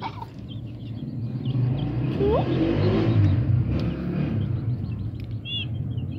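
Low engine rumble of a passing vehicle, swelling over the first few seconds and then fading.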